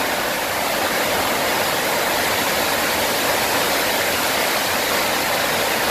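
FlowRider wave simulator: a thin sheet of water pumped at speed up the padded slope, making a steady, unbroken rush.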